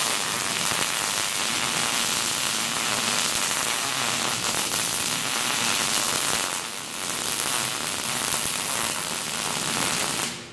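Arc welding a square steel-tubing leg onto the steel forge table: the arc's loud, steady crackle starts abruptly, dips briefly about two-thirds of the way through, and cuts off just before the end.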